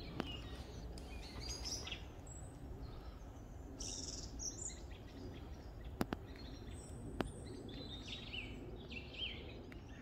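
Wild birds singing and calling: scattered short chirps and brief phrases over a steady low background rumble, with two sharp clicks about six and seven seconds in.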